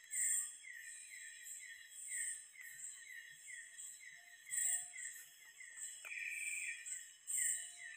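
Night chorus of tropical forest insects: steady high-pitched whines under a chirp that repeats two or three times a second, with louder shrill bursts three times.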